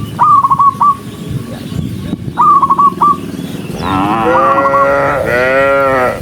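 Cattle mooing: one moo begins about two-thirds of the way in, and a longer moo that rises and falls in pitch follows near the end. A short, high, trilled chirp sounds three times, about two seconds apart.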